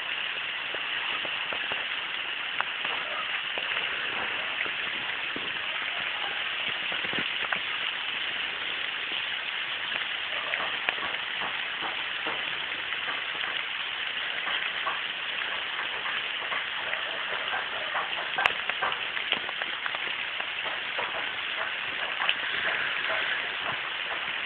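Rain falling on tree foliage and the ground: a steady hiss with many scattered sharper drop ticks.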